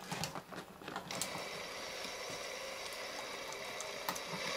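Small electric motor and gear train inside a Honeywell aircraft altitude indicator, driving the pointer and counter drums: a few light clicks, then from about a second in a steady whir.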